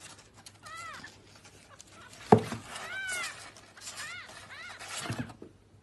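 Newborn kitten mewing: about four thin, high-pitched cries that rise and fall. There is a loud thump about two seconds in and a softer knock near the end.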